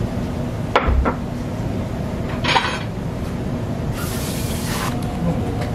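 Restaurant kitchen noise: two quick clinks of dishes about a second in and a short clatter midway, then a hiss lasting about a second near the end, over a steady low rumble.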